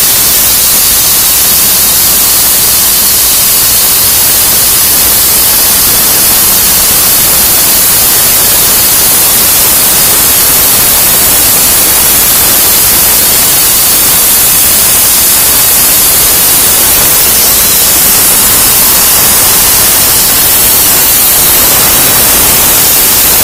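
PlasmaCam CNC plasma cutter's torch cutting through 5/8-inch plate: a loud, steady hiss from the arc and its air jet.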